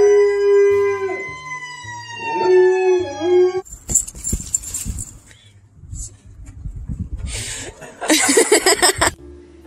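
A dog howling: one long, loud howl that holds steady, wavers in pitch and cuts off suddenly about three and a half seconds in. Rumbling noise follows, with a loud harsh burst near the end.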